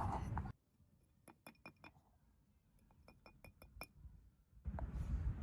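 A run of about ten faint, sharp, ringing clinks, in two quick groups, over dead silence. A steady background hiss comes back near the end.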